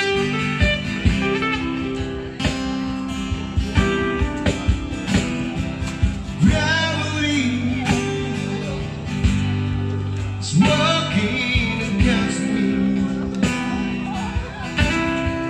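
Background music: a song with guitar, a steady beat and a singing voice.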